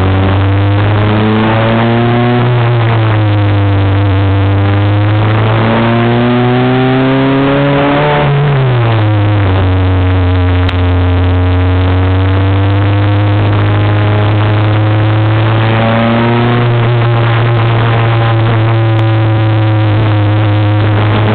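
Super FJ formula car's Honda 1.5-litre four-cylinder engine at racing revs, heard from the cockpit. Its pitch climbs slowly, drops sharply about eight seconds in, then holds and starts climbing again near the end.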